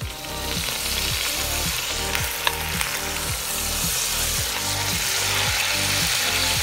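A whole chicken frying in hot oil in a metal pot, turned with a spoon. It makes a steady sizzle that starts abruptly, with one sharp tap about two and a half seconds in.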